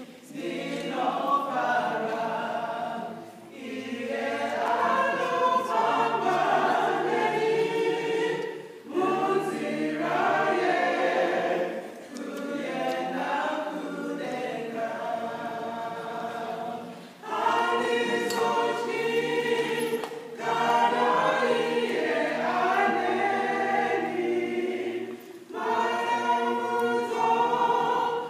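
A small mixed group of men's and women's voices singing together as a choir, in sung phrases broken by brief pauses every few seconds.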